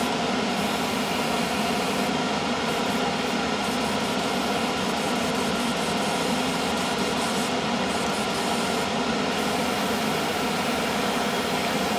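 Airbrush spraying primer with a steady hiss over the hum of its air compressor; the highest part of the hiss drops away briefly a few times.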